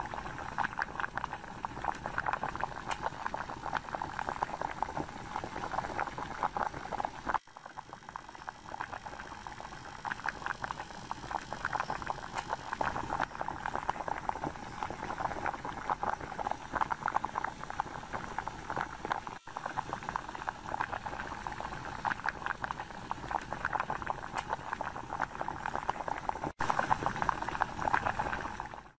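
Electrolytic rust-removal bath fizzing: a steady, dense crackle of fine gas bubbles rising off the submerged rusty wrench and steel electrode under 12-volt current. The fizz drops out briefly three times.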